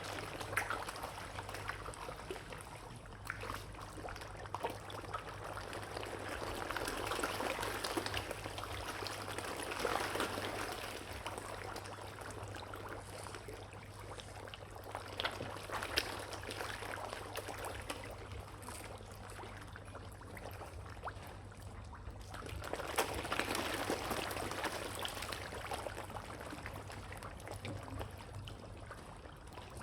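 Water pouring and trickling, swelling louder twice, with scattered sharp clicks over a steady low hum.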